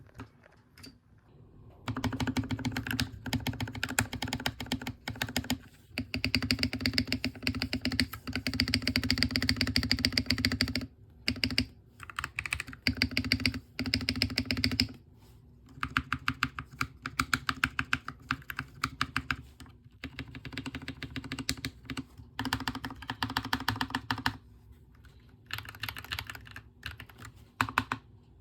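Typing on a mechanical keyboard in a fast run of key clacks with short pauses, the long keys riding on lubed, holee-modded Pasotim stabilizers. The stabilizer sound is somewhat inconsistent.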